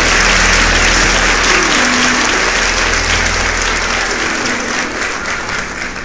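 A crowd applauding over the tail end of a music track, the whole steadily fading out.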